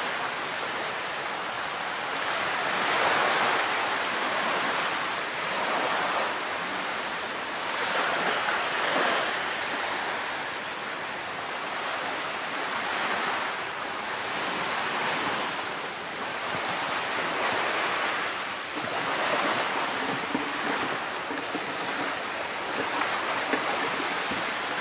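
Surf washing onto a beach: a steady rush of noise that swells and falls back every few seconds as the waves come in.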